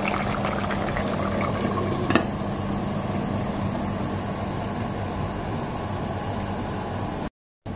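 Pork hamonado in soy sauce and pineapple juice simmering under a glass pot lid: a steady bubbling hiss with a low hum beneath it, and a light click about two seconds in.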